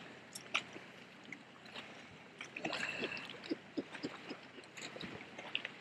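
Faint, irregular clicks and ticks of a snagging rod's reel being worked against a heavy hooked fish, over low water noise.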